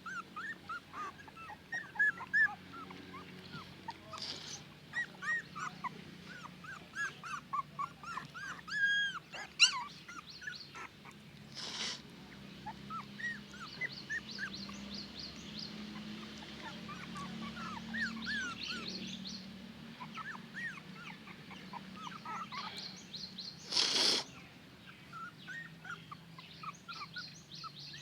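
Newborn puppies whimpering and squeaking: many short, high-pitched rising-and-falling cries, with two brief bursts of noise, one about halfway through and a louder one near the end.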